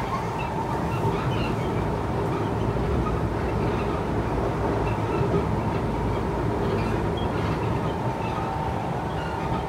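Kawasaki C151 electric multiple-unit train running at speed, heard from inside the passenger car: a steady rumble of wheels on the rails with a steady tone humming above it.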